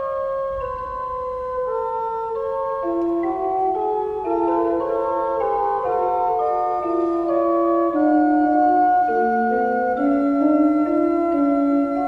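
Background music: a slow melody of long held notes over lower held notes, gradually getting a little louder.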